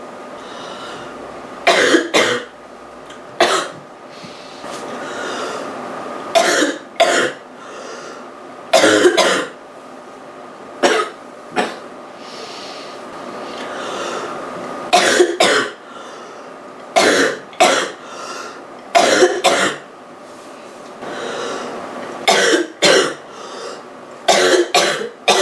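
A girl coughing roughly from a cold: short harsh coughs, mostly in close pairs, coming again every two to three seconds.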